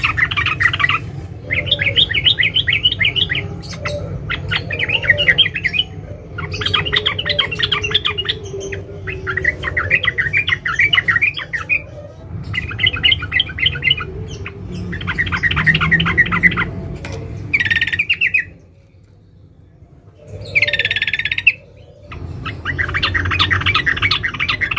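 Trucukan (yellow-vented bulbul) giving about ten bursts of fast, closely packed chattering notes, each a second or two long with short pauses between them. After a pause of about two seconds near the two-thirds mark comes one short, higher burst, then the chatter resumes. A steady low hum runs underneath.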